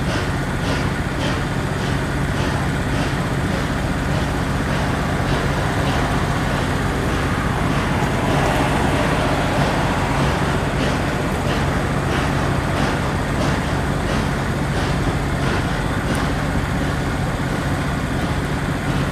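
A steady low engine drone, with a faint regular ticking a little under twice a second that fades out for several seconds and then returns.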